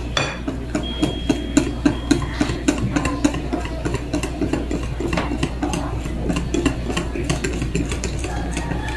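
Wire whisk beating a runny rice-flour and coconut-cream batter in a glass bowl: a wet swishing broken by repeated quick clicks of the wires against the glass.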